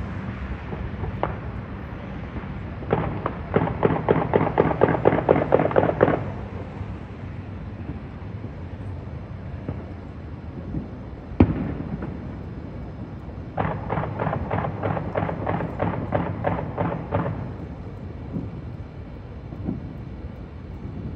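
Fireworks going off in two rapid strings of pops, about eight a second, each lasting about three seconds, with a single sharp bang between them and a few lone pops.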